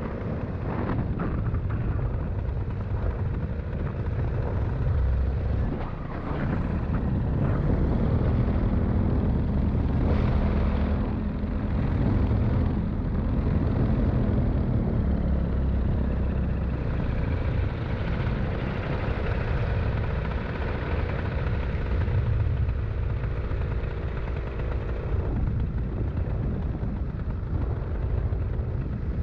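Small aircraft's engine and propeller running steadily, heard from on board, with wind noise; the engine's pitch shifts slightly but it does not stop.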